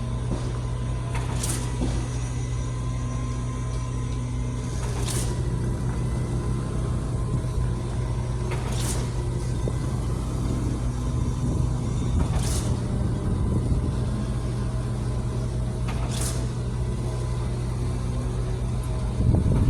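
Heavy diesel construction machinery at a concrete pour running steadily, a low drone, with a short hiss repeating evenly about every three to four seconds.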